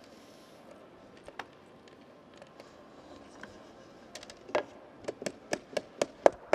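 Short, sharp wooden taps, about eight in quick succession in the second half and roughly four a second: a wooden block knocked down onto kumiko lattice pieces to seat them. A couple of faint clicks come before them.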